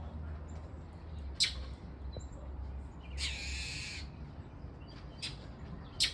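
Birds calling while mobbing a dog: three short, sharp calls and one harsh, rasping call about three seconds in that lasts nearly a second.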